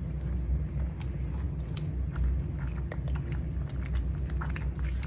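Two cats crunching dry kibble from a bowl: quick, irregular crunches and clicks over a low steady hum.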